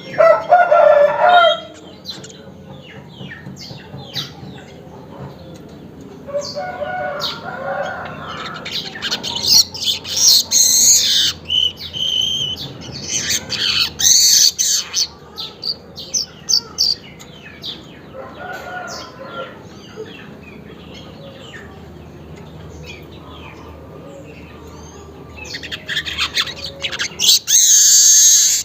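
Manyar weaver birds giving their rapid, buzzy chattering song in several loud bursts. A rooster crows at the start and a couple more times in the background.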